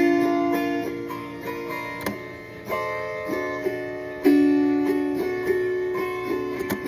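Music with a plucked guitar playing a melody of ringing, held notes.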